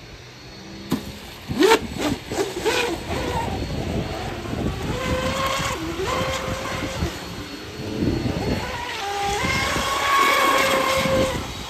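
Electric RC tunnel-hull racing boat's brushless motor (3660-size, 2550 kV on 4S, 40 mm prop) whining at speed, its pitch dropping and rising again as the throttle is eased and reopened. A few short sharp sounds come in the first couple of seconds as the boat is set off.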